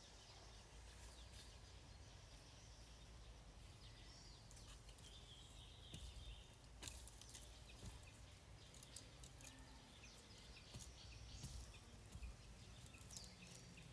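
Faint rural outdoor ambience with a few faint bird chirps and scattered light clicks and rustles.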